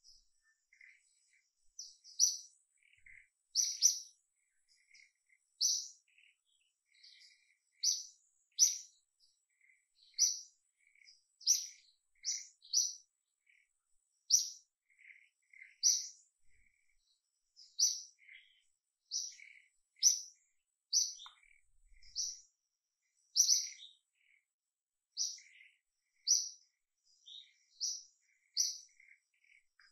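A bird chirping: short high chirps in a long, uneven series, roughly one or two a second, with fainter lower notes in between.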